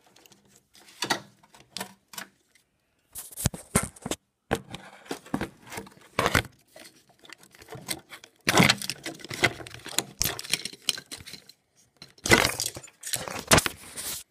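Plastic wiring-harness connectors being unplugged and handled: irregular clicks, rattles and wire rustling in bursts, the loudest clatter coming in two stretches in the second half.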